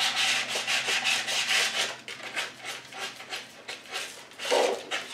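Fine sandpaper rubbed by hand in quick downward strokes along the edge of a paper-covered wood panel, smoothing away the slight lift of the freshly trimmed paper edge. The strokes come about four a second, then go softer from about two seconds in, with one louder stroke near the end.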